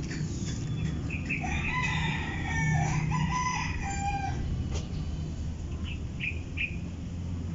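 A rooster crowing once, a long call of about three seconds, followed a couple of seconds later by three short high calls, over a steady low rumble.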